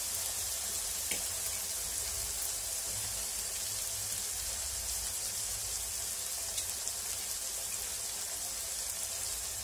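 Chopped onions, tomatoes and green chillies sizzling in hot oil in an iron kadai: a steady frying hiss with a few small crackles.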